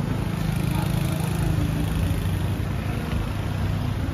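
A motorbike engine running close by over street traffic noise, its hum strongest in the first two seconds.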